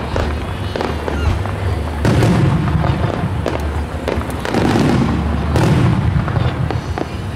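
Starmine fireworks barrage: aerial shells bursting one after another, several deep booms with sharp bangs between them, every second or two.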